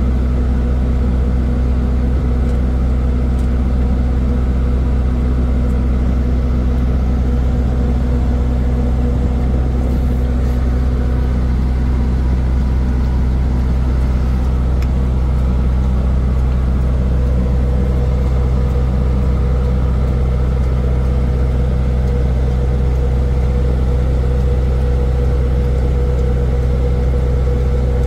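Steady, loud drone of a ship's engine machinery running continuously, a deep hum with a few steady higher tones over it.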